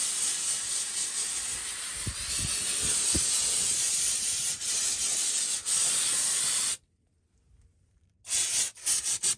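Aerosol can of parts cleaner spraying in one long hiss that cuts off after about seven seconds, with two brief breaks. Near the end come several quick, short hissing strokes.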